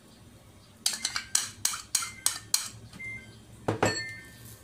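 A quick run of about seven light clinks, roughly three a second, then two more near the end: tableware tapping against a small ceramic bowl as sweet soy sauce is emptied out of it.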